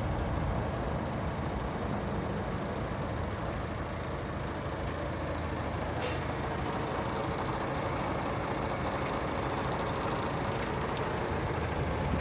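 DAF CF440 tractor unit's PACCAR 440 bhp Euro 6 diesel engine idling with a steady low rumble. A short burst of air hisses from the truck's air system about six seconds in.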